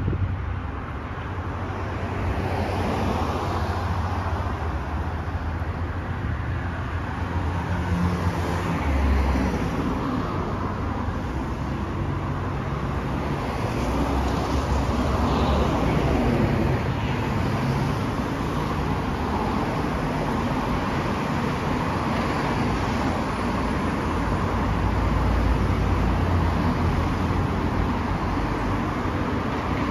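City road traffic: cars passing on the street, a continuous rumble of engines and tyres that swells as vehicles go by.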